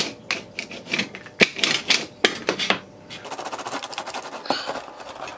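Artist's brayer rolled hard over a thin ridged sheet of tin cut from a tin can, the metal crackling and clicking as it is pressed flat. From about three seconds in the clicks run together into a fast, even rattle.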